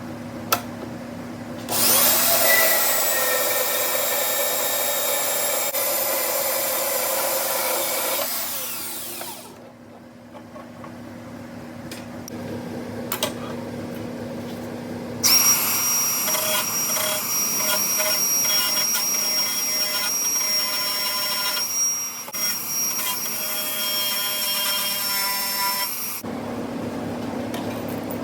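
A handheld power tool running at high speed in two long spells, first for about six seconds and then, after a pause, for about eleven, with a steady high whine. A few sharp clicks come before the first run.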